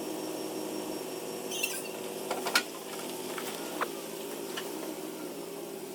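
Vehicle engine idling steadily, with a few sharp clicks and knocks, the loudest about two and a half seconds in.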